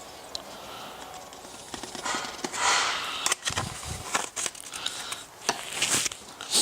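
Premixed two-stroke fuel pouring into a chainsaw's fuel tank as a steady trickle. From about two seconds in come louder gushes and a series of knocks and clicks as the can and tank are handled.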